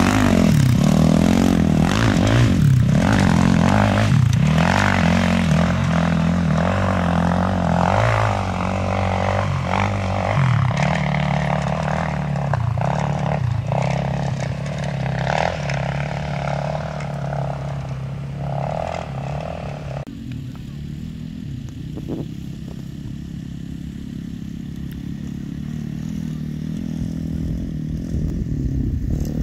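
Off-road race dirt bike engines running hard on a desert course: loud at first, then one bike's engine falling slowly in pitch as it rides away. From about twenty seconds in it is suddenly quieter, with only a more distant engine.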